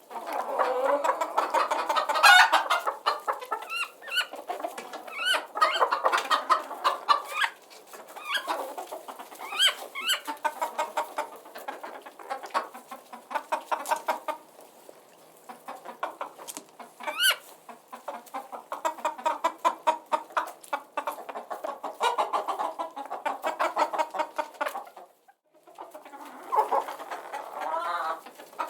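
A flock of chickens clucking, many short calls overlapping, with now and then a sharper, higher call. There is a short break near the end.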